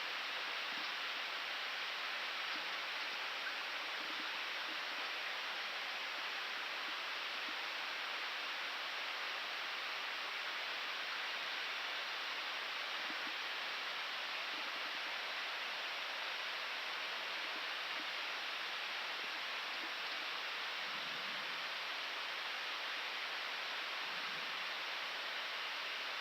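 Steady rushing hiss of airflow and air-conditioning noise in an Airbus A319 cockpit in flight, unchanging throughout.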